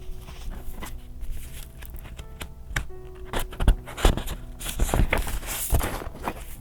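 Paper and stationery being handled on a desk: light taps, knocks and rustling of paper. Soft background music plays underneath.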